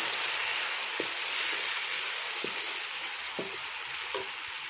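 Chopped tomatoes and green chillies sizzling in hot oil with fried onions, stirred with a wooden spoon in an aluminium pot. A few light spoon knocks stand out, and the sizzle softens slowly.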